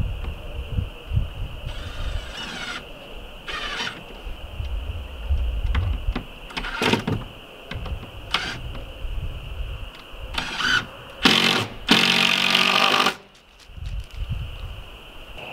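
Handheld power drill whirring in several short bursts, the longest and loudest lasting about two seconds near the end, as he drives fasteners into board-and-batten siding. A steady insect drone runs underneath.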